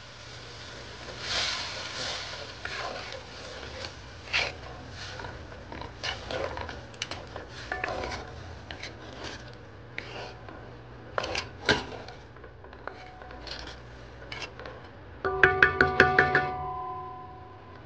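Wooden spoon stirring pigeon peas and black beans in a pot of liquid, with scattered scrapes and light knocks against the pot. Near the end comes a short, loud run of quick ringing musical notes.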